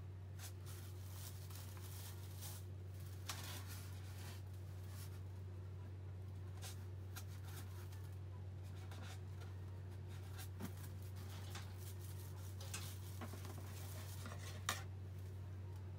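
Soft rubbing and scraping with scattered light clicks over a steady low hum: yaki-manjū buns, skewers and utensils being handled, with a sharper click near the end.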